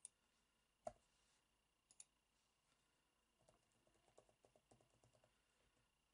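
Faint clicking of computer keyboard keys: a few separate clicks in the first two seconds, one louder about a second in, then a quick run of keystrokes from about three and a half seconds in.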